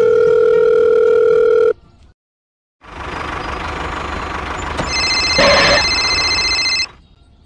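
A steady electronic phone tone for about two seconds, then a short gap. An engine-like running sound then starts, and from about five seconds in a high electronic phone ringtone plays over it. Both stop together about seven seconds in.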